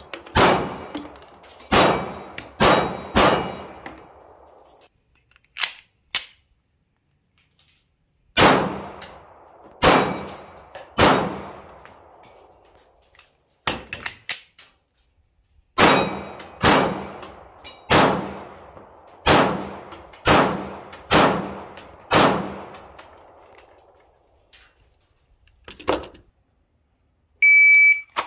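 Taurus GX4 9mm sub-compact pistol fired in strings of shots, about twenty in all with pauses between the strings. Each shot is followed by a metallic clang that rings and fades, like bullets striking steel targets. A short steady beep sounds near the end.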